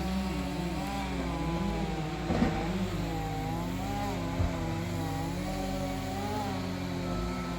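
An engine running steadily, its pitch wavering slightly, with a short knock about two and a half seconds in.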